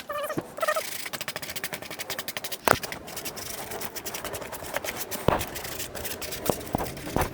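Rapid, continuous scratchy scraping as crumbling old foam is cleaned off a car headliner board, with a few sharper knocks along the way. The foam has to come off completely or the new headliner fabric will keep falling.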